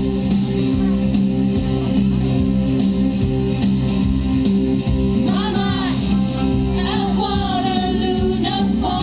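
Loud pop song with guitar playing over a hall sound system. About five seconds in, women's voices come in singing long, wavering notes.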